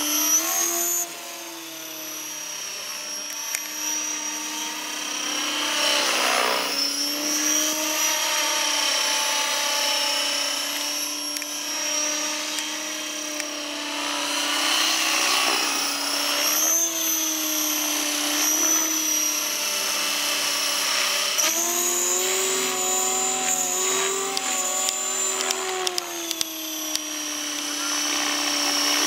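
Align T-Rex 550 radio-controlled helicopter in flight: a steady high whine from its motor and gears over the buzz of the spinning rotor blades. The pitch dips and rises several times as it manoeuvres, and the loudness drops about a second in, then swells again.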